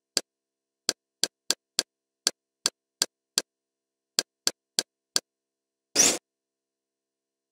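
Kodi interface navigation sounds: about thirteen short clicks at uneven intervals as the selection steps through a TV-guide menu. About six seconds in comes a longer, louder select sound.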